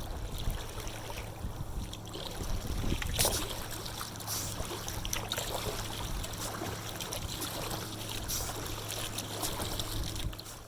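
Kayak paddling: water splashing and trickling off the paddle blades, with a few sharper splashes about one, three and eight seconds in, over a faint low steady hum.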